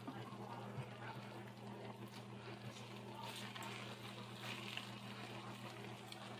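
Faint kitchen room tone: a steady low hum with a soft sizzle from a lidded skillet of eggs and vegetables cooking on the stove.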